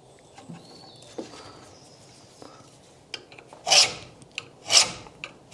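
Scraping on the rusty steel chassis rail while the cut line is marked out: a few faint light taps, then two short scrapes about a second apart.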